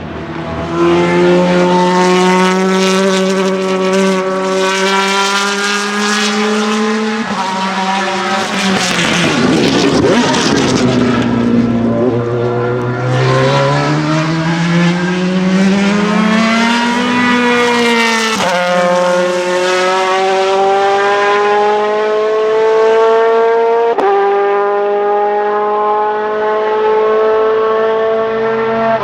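Ferrari F430 GTC/GT2 race car's naturally aspirated 4.0-litre 90° V8 accelerating hard, its note climbing through the revs. Each climb is cut by a sudden drop in pitch, about seven, eighteen and twenty-four seconds in, as the 6-speed sequential gearbox shifts up. After the first shift the note falls away and runs rough for a few seconds, then climbs again.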